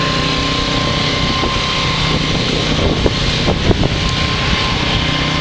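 Car driving, heard from inside the cabin: steady engine and road noise, with a few light knocks about three seconds in.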